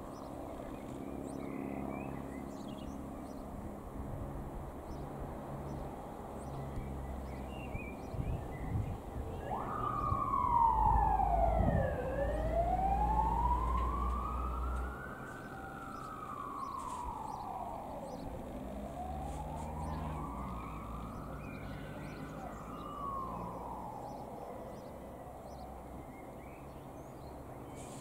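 A siren wails slowly up and down, starting about a third of the way in and fading out near the end. Under it runs a steady low rumble.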